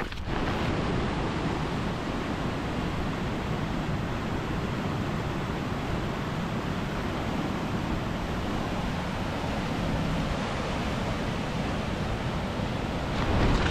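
Steady, even rush of water pouring down a small waterfall.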